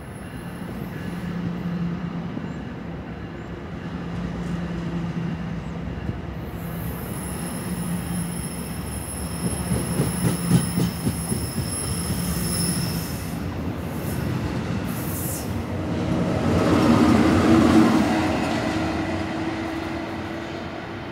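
NJ Transit multilevel commuter train pulling out of the station, its cars rolling past with a steady rumble. A thin high whine runs through the middle and there is a short run of wheel clacks over the rail joints. The sound swells loudest near the end as the locomotive pushing at the rear goes by, then fades.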